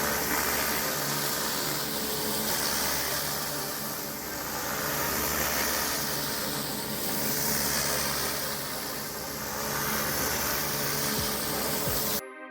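Pressure washer's engine running with a steady hiss of water spray, the sound swelling and fading every two to three seconds. It cuts off abruptly near the end.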